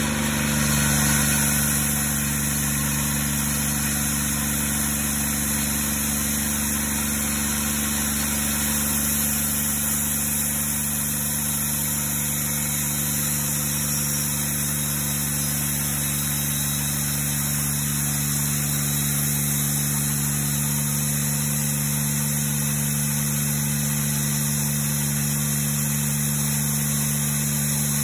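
Engine of a 50-inch wide portable bandsaw mill running at a steady pitch under load as the band blade saws through a large ash log, with a slight swell in level about a second in.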